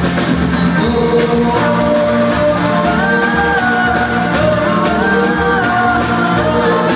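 Live band playing with a voice singing long held notes over a steady pulsing bass.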